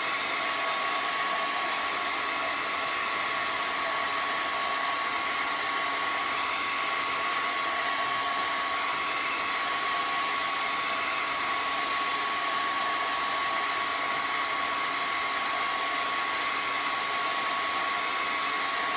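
Handheld blow dryer running steadily: a rush of blown air with a steady high whine from its motor.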